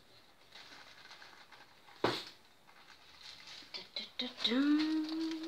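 Faint rattling and clicking of resin diamond-painting drills in a plastic tray, with one sharp click about two seconds in. Near the end a woman's voice holds one long rising-then-level hum.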